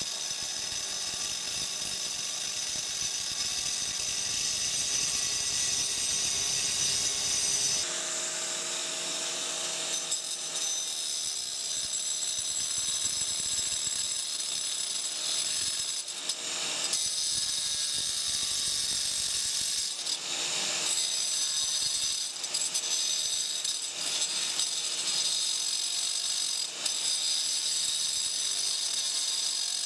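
A 4-inch angle grinder with a diamond blade runs continuously as it cuts into a granite countertop slab at the corner of a sink cutout, with a steady high whine. About eight seconds in, the low rumble drops away.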